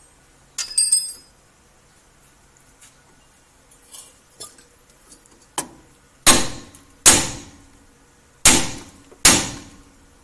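Four hard hammer blows on the steel front suspension at the ball joint, in two quick pairs, each ringing briefly; the blows are struck to make the joint lift and work loose. A metallic clink of a tool and a few light knocks come before them.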